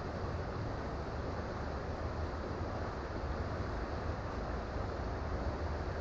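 Creek water flowing in a steady rush, with a low rumble underneath.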